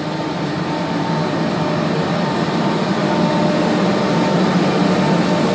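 NS 1700-class electric locomotive moving slowly past: a steady hum from its traction equipment and cooling blowers, with a thin whining tone over it, growing louder as it comes closer.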